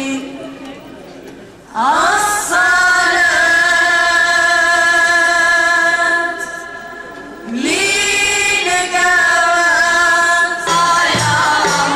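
A woman's voice singing two long, held phrases of a Sufi hadra chant, each sliding up into the note, with short pauses between. About a second before the end, drum beats and more voices come in.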